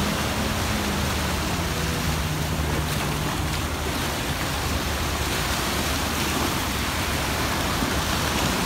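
Small waves breaking and washing on a sandy beach, with wind noise on the microphone. Under it a jet ski's engine hums, sinking slightly in pitch over the first few seconds and then fading as it runs out to sea.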